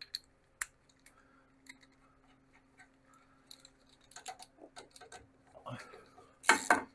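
Small metal clicks and clinks of a socket ratchet on an extension being fitted to the grub screw on a VW Beetle front-beam trailing arm, turning into a loud run of quick ratchet clicks near the end as the screw is run in.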